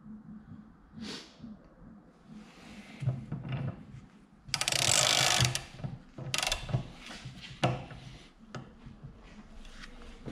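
Ratchet wrench and socket clicking as a bolt is turned down through a homemade dimple die to press a dimple into a steel plate, with scattered metal clicks and a loud stretch of fast ratcheting lasting about a second, about halfway through.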